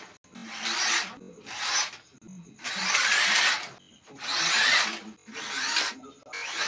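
A series of about six rasping, scraping strokes, each under a second long with short pauses between, like hand filing or sanding.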